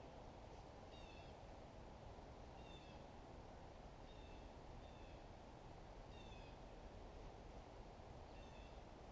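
Faint, high chirps of a small bird, short calls that repeat every second or two, over a quiet steady hiss of near silence.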